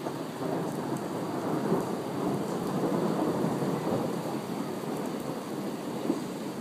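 Rolling thunder that builds over the first couple of seconds and slowly eases off, over steady rain.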